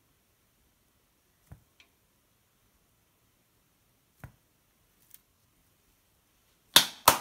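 A few faint squirts and clicks from a squeeze bottle drizzling chocolate sauce, spaced seconds apart, then two louder sharp knocks close together near the end.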